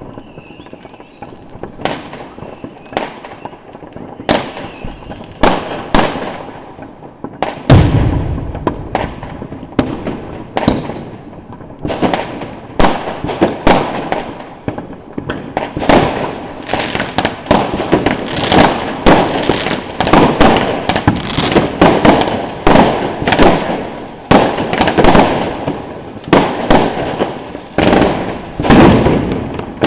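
Consumer firework batteries firing. Scattered sharp reports come first, then a heavy deep boom about eight seconds in. From about twelve seconds on there is a dense run of rapid shots and crackling bursts.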